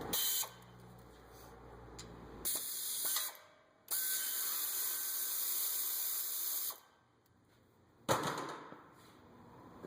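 Three bursts of hissing spray, short, then short, then a longer one of about three seconds, each starting and stopping sharply.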